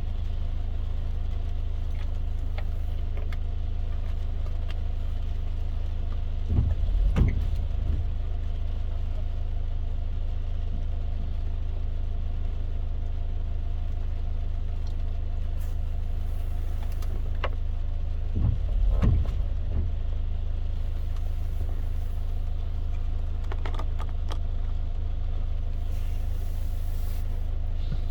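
Inside a car driving in the rain: a steady low drone from the road and engine, with scattered light ticks over it. Two heavier low thumps come, one about a quarter of the way in and one about two-thirds through.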